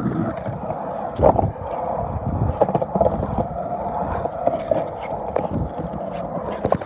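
Skateboard wheels rolling on a driveway: a steady rumble with frequent small clicks and knocks from the surface.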